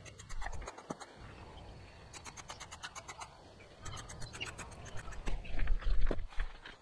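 Scissors cutting through a sheet of nonwoven geotextile fabric: three short runs of rapid, crisp clicks as the blades chew through the material. Louder low thumps and rustling near the end as the fabric is handled.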